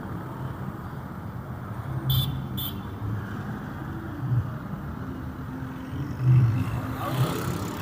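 City street traffic: vehicles running and passing with a steady low rumble that swells a few times. There are two short, high-pitched sounds about two seconds in, and a hiss as a vehicle passes near the end.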